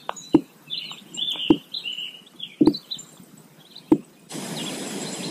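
Small birds chirping in the background, with a few sharp clicks scattered through. Near the end a steady hiss starts abruptly.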